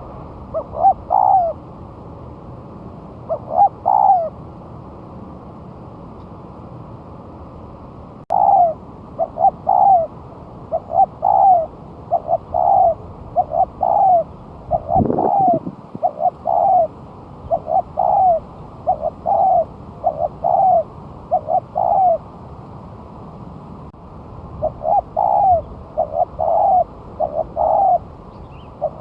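Spotted dove (tekukur) cooing over and over, in runs of short coos with pauses of a few seconds between runs.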